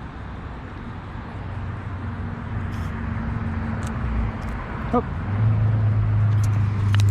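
A motor vehicle driving past on the road: tyre and engine noise building steadily, with a low engine hum that is loudest over the last couple of seconds.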